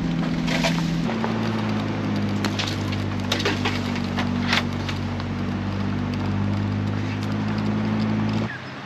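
80 series LandCruiser engine running steadily at low speed, with bush branches scraping and snapping against the vehicle's body several times in the first half. The engine drone cuts off near the end.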